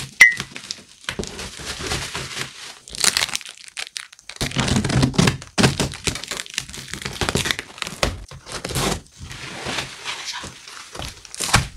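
Cardboard shipping box being opened by hand: packing tape cut and torn off, and cardboard flaps and plastic wrap crinkling and scraping as they are pulled apart, with a few dull knocks against the box.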